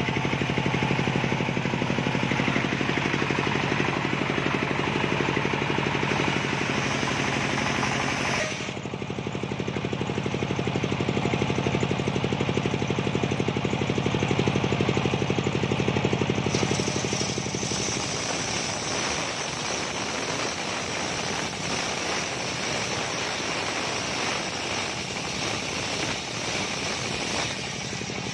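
Engine-driven circular sawmill running, its large toothed blade ripping coconut-wood timber over a steady engine drone. The sound changes sharply about eight seconds in and again about sixteen seconds in, and later the low drone turns rougher and less even.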